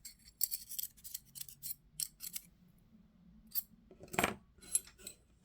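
Small metal knife parts and screws clicking and clinking as they are handled and set down, in a quick irregular string of light ticks, with a louder knock about four seconds in.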